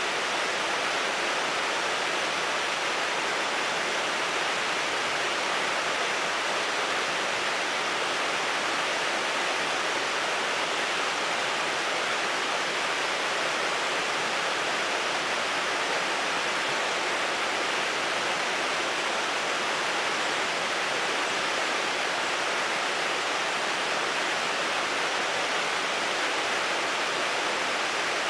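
Shallow river rapids rushing over rocks: a steady, unbroken rush of whitewater.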